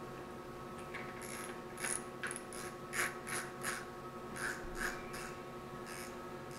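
Faint, irregular clicking of a spinning fishing reel being handled and put back together, its parts turned and fitted by hand: about a dozen small clicks, two or three a second, starting about a second in with a short pause in the middle, over a steady low hum.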